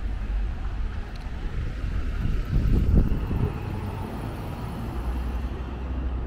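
City street traffic, with a vehicle passing loudest about three seconds in.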